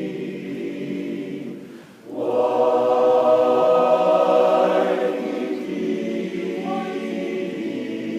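Chorus singing sustained wordless chords between sung lines. One held chord fades out just under two seconds in, then a louder chord swells in and holds, easing off after about five seconds.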